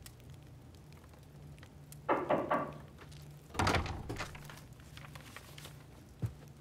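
A few soft knocks and thuds over a low steady hum. The loudest thud comes about three and a half seconds in, and a sharp click follows near the end.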